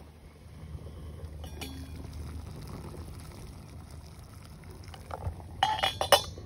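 A metal pot lid clinks sharply against a stainless steel cooking pot several times near the end as it is handled, over a low steady rumble.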